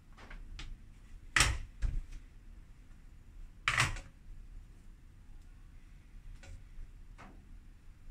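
Bread dough being divided and set on a digital kitchen scale on a countertop: short knocks and taps, two louder ones about a second and a half in and just before four seconds, with fainter ticks between.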